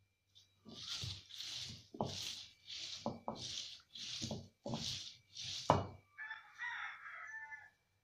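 Stone roller rolled back and forth over a flat stone grinding slab, crushing green leaves into a wet paste: about nine rhythmic scraping strokes, roughly one and a half a second, each with a dull thud. Near the end the grinding pauses and a brief call of about a second and a half is heard.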